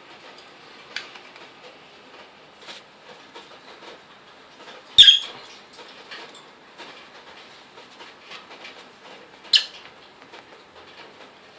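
Lovebird shredding paper into strips with its beak: soft, continuous crackling and rustling of the paper, with three sharp, louder snaps, about a second in, midway (the loudest) and near the end.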